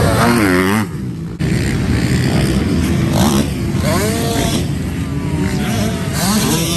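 Dirt bike engines revving as riders go over a motocross jump one after another, each engine's pitch rising and then falling away, several times.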